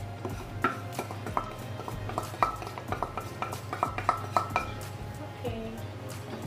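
Wooden spatula scraping and tapping seasoning out of a ceramic bowl into a pan of rice: a quick run of clinks and knocks, some with a short ring. It then scrapes as it stirs the rice in the nonstick pan.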